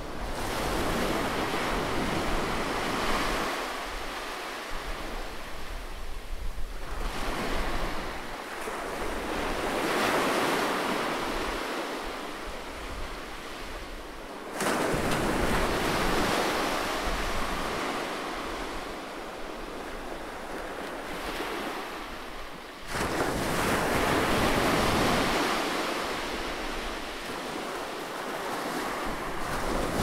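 Ocean surf breaking and washing up a sandy beach, rising and falling back every few seconds. Two sudden louder surges come about halfway through and again near the three-quarter mark.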